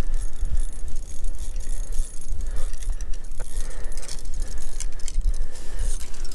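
Small ice-fishing reel and rod clicking and rattling in irregular short ticks as line is worked in against a hooked trout. A gusting low rumble of wind on the microphone runs underneath.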